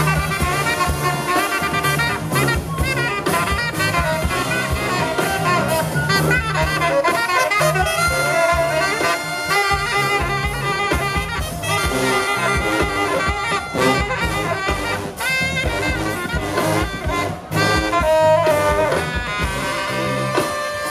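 Live brass band playing New Orleans second-line style jazz: sousaphones pumping a low bass line under trumpet and saxophones, with drums keeping a busy beat.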